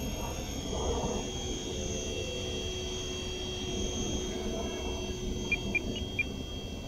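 Steady high whine of electric RC aircraft motors and rotors, over a low wind rumble on the microphone. Four short beeps sound close together near the end.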